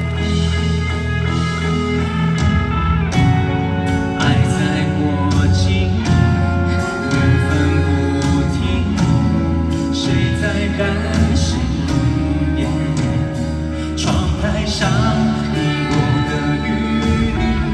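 Slow Mandarin pop ballad playing: instrumental accompaniment with a voice singing.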